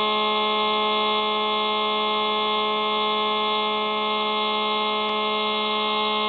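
Hubsan Spy Hawk RC plane's electric motor and propeller, picked up by the plane's onboard camera: a steady buzzing whine that holds one pitch throughout.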